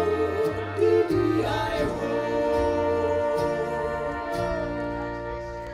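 Austrian folk music (Volksmusik) from a small band with a diatonic accordion and a trumpet: held melody notes over a bass line that steps from note to note. It fades out near the end.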